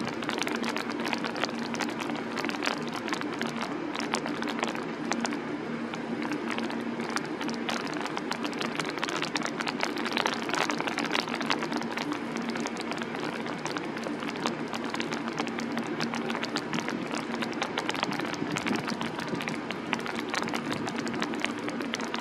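Rain falling, a dense stream of small drop ticks close to the microphone, over a steady low hum.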